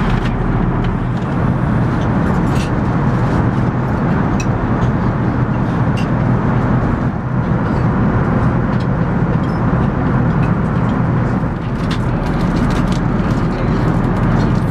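Steady cabin noise of an Airbus A380 in flight: a dense, low drone of engines and airflow, with scattered light clicks and rattles on top.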